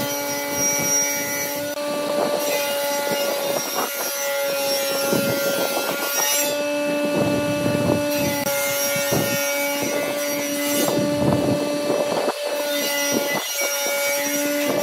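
Pen scratching on bare wood in short, uneven strokes as it traces around paper templates, over a steady hum.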